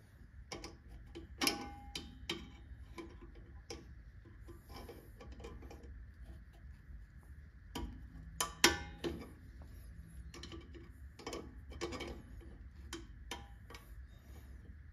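Small, irregular metallic clicks and taps of drum-brake shoe hold-down clips and pins being worked back into place on the rear brake backing plate, the loudest click a little past the middle.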